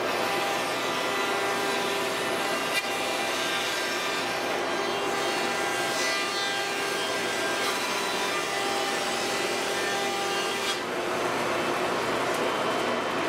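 CNC router spindle planing flat wooden boards with a surfacing bit under a dust shoe: a steady cutting hiss mixed with the whine of the spindle and the suction of the dust collection.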